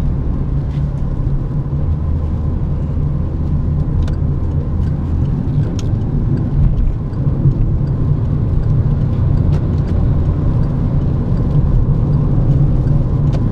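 In-cabin drone of a Chevrolet Prisma Joy 1.0 cruising on the highway in sixth gear at about 75–85 km/h: a steady low engine and tyre noise, with a few faint ticks here and there.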